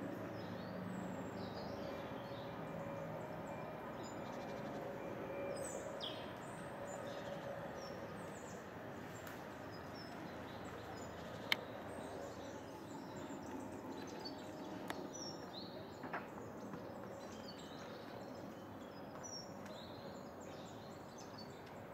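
Faint outdoor ambience with a steady low hum and scattered chirps of small birds. A sharp click about halfway through, and a fainter one a few seconds later.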